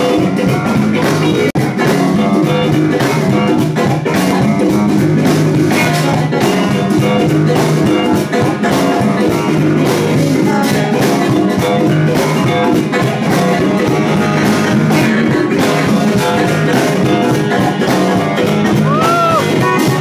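Live band playing loudly, with a drum kit and keyboards among the instruments. A short note bends up and back down shortly before the end.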